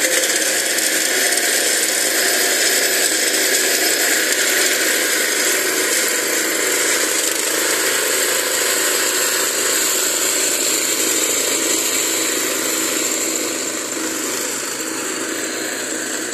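The Chinese-made 7 HP four-stroke engine of a walk-behind brush cutter runs steadily under load. Its vertical rotary blades, made from car leaf springs, are slashing through undergrowth. The sound eases slightly near the end.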